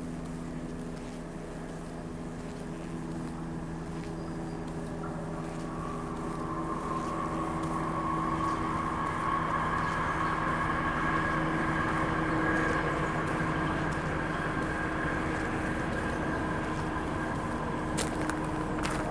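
A steady engine hum with a constant pitch swells and then holds through the middle. Near the end, footsteps crunch on gravel.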